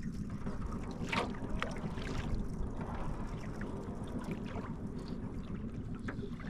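Wind on the microphone and water lapping against the side of a small boat drifting through lake reeds, with a few brief slaps or brushes against the hull.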